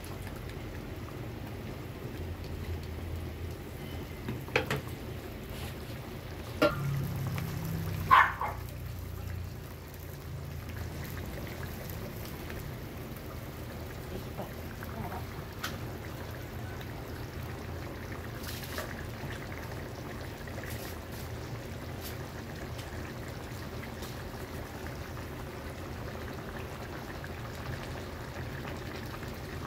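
Milk pouring from a can into a steel pan of simmering curry, with a metal spoon clinking against the pan a few times, loudest about eight seconds in. A steady low hum runs underneath.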